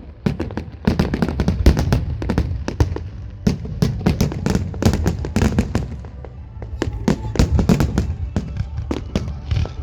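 Aerial fireworks going off in a rapid, dense series of bangs and crackles, easing slightly for a moment partway through.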